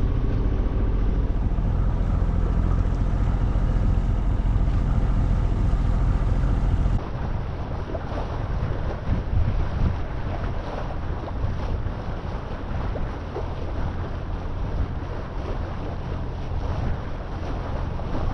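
A sailboat's Volvo Penta inboard engine running steadily under way, a low even drone. About seven seconds in the sound changes abruptly to gusty wind noise on the microphone and water, with the engine fainter beneath.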